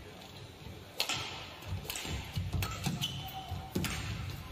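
Badminton rally: sharp racket-on-shuttlecock hits about once a second, with short squeaks of court shoes on the floor.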